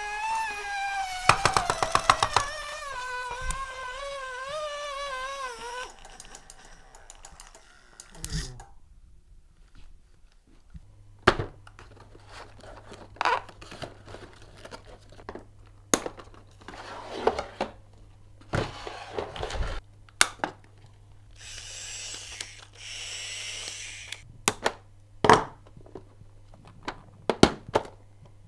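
Overvolted talking parrot toy playing back a high-pitched, wavering electronic voice that slides down in pitch, with rapid clicking about a second in. It stops after about six seconds. Then come plastic handling sounds: scattered knocks and thunks of toy bolts and a plastic board, and a stretch of crinkling plastic packaging near the end.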